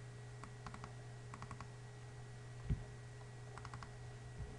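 Faint computer mouse clicks in several quick clusters, double-clicks opening files in a code editor, with one soft low thump just under three seconds in, over a faint steady hum.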